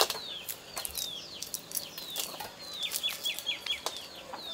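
Birds chirping: short, quick, falling chirps repeated throughout, with a rapid run of about six notes about three seconds in. Sharp clicks and taps sound in between.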